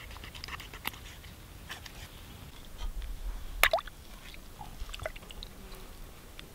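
Wet squishing and dripping as raw fish pieces are handled and set into broth in a pot, with scattered small clicks and one sharper splash-like click about halfway through.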